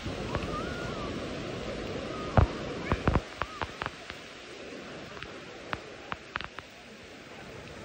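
Steady wind and surf noise at the water's edge, with a run of sharp clicks and knocks starting about two and a half seconds in, the loudest at the start of the run, then thinning out.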